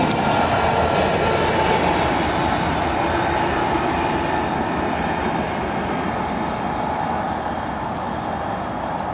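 NMBS/SNCB class 77 diesel locomotive running light, its Caterpillar V12 diesel engine running as it passes and draws away. The sound slowly fades.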